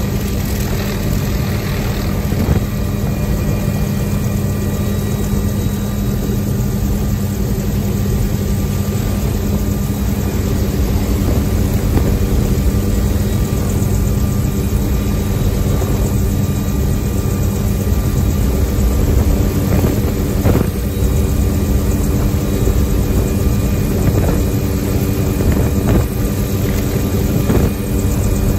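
Tour helicopter's turbine and rotor running steadily from inside the open, doors-off cabin, with wind rushing past the microphone as it climbs away after takeoff. A steady low hum with a few fixed higher tones sits over the rotor rumble, growing slightly louder during the climb.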